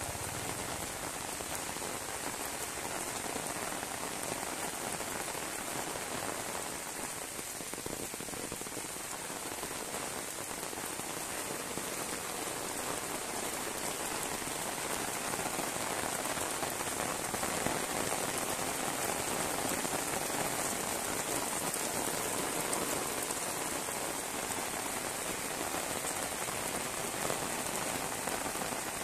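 Heavy tropical rain pouring steadily onto wet concrete paving and puddles, a dense, even hiss that grows slightly louder about halfway through.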